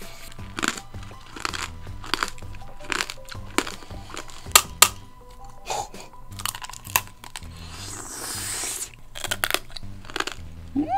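Hard sugar glaze of tanghulu cracking in a string of sharp crunches as candied strawberries are bitten and chewed, over background music.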